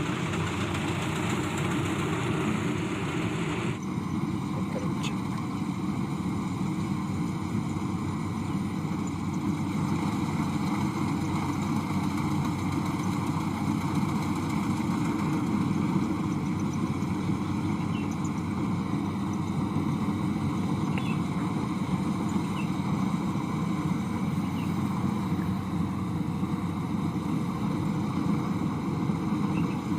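Rice-harvesting machine running steadily in the field: a continuous engine drone with working noise from the machine as it cuts the rice.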